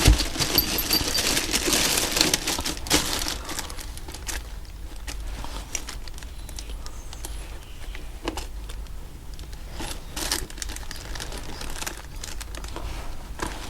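Plastic parts bag rustling and crinkling as it is handled, loudest for the first few seconds, then scattered small clicks and taps of parts being handled.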